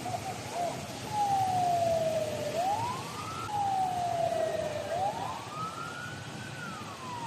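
A siren wailing, starting about a second in. Its pitch slides slowly down and then sweeps quickly back up, repeating every two to three seconds over steady background noise.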